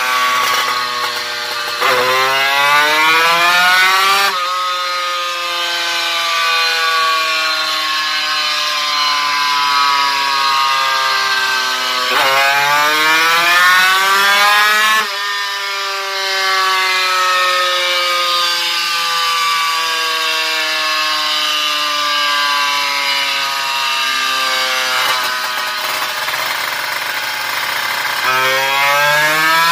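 Motorcycle engine with a Creampie muffler on a roller dyno, doing dyno pulls: the revs climb sharply for about three seconds, then fall away and the pitch sinks slowly over several seconds as the roller winds down. This happens three times, with the last climb starting near the end.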